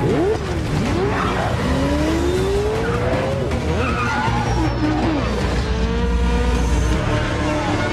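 Chase-scene vehicle sounds: engines revving up and down and tyres squealing, over a low music bed.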